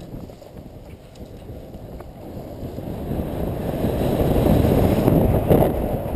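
Wind rushing over the microphone, building as the paraglider pilot speeds up down the launch and loudest about four to five and a half seconds in, as the XXlite 16 wing lifts off and the pilot gets airborne.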